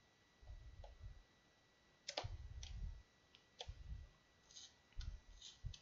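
Faint handling noise of a cardboard and plastic Pokémon trading-card collection box being worked open by hand: a few sharp clicks, the clearest about two seconds in, then a few soft bumps and a little crinkle.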